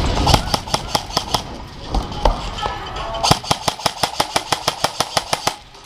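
Airsoft guns firing: a few scattered shots in the first second or so, then a fast even string of sharp snapping shots, about six or seven a second, that stops shortly before the end.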